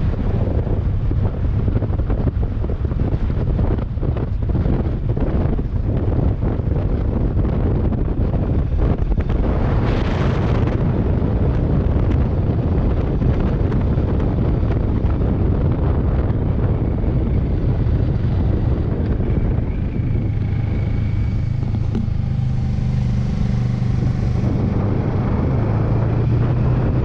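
Wind buffeting the microphone while riding a Kawasaki Versys 650 motorcycle, with the bike's parallel-twin engine droning steadily underneath. The engine note comes through more clearly near the end.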